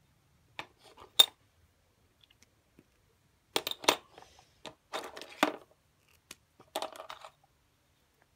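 Small clicks and clatter of marker pens, metal bottle tops and coins being handled in a terracotta saucer as one pen is set down and another picked up. A single sharp click comes about a second in, followed by short bursts of rattling in the middle and near the end.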